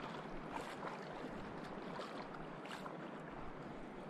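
Shallow sea water lapping and sloshing steadily around a wading angler, with a few faint splashes.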